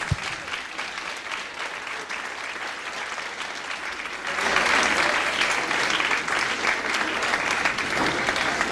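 Audience applauding, the clapping swelling louder about halfway through.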